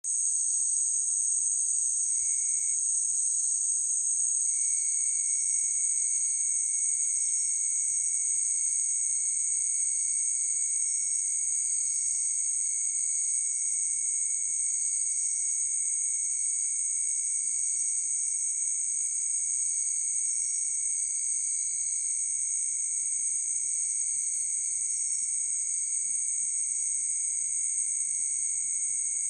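Crickets chirring at night: a steady, dense high-pitched chorus that never lets up, with a fainter, lower steady trill beneath it.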